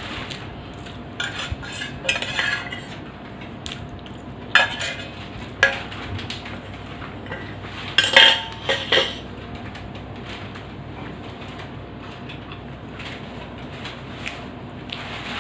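Cutlery clinking and scraping against a plate while macaroni is eaten from it, in a few short scattered clinks, loudest about eight seconds in.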